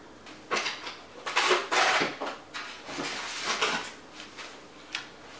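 Packaging being handled as accessories are taken out of a computer box: a run of rustling and scraping noises for about three seconds, with a few light clicks.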